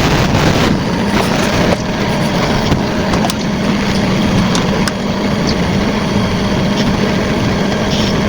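Steady loud hiss with a low hum, the background noise that comes from a camera recorder charging while it records.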